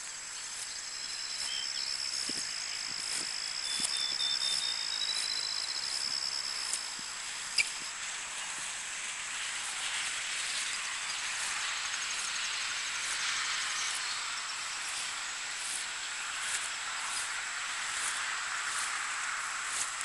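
Early-morning rural outdoor ambience: a high, thin trilling call for the first several seconds over a steady hiss, with one sharp click about seven and a half seconds in.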